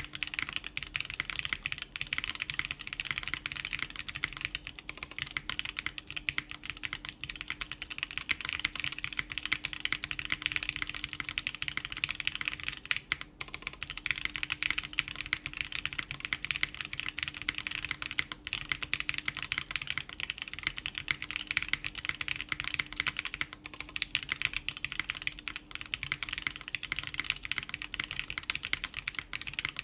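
Continuous typing on a Plywrks Spyder TKL mechanical keyboard in its o-ring mount, with factory-lubed Gateron Khonsu switches, GMK keycaps and a full polypropylene plate: a dense stream of key clacks, with a short pause about 13 seconds in.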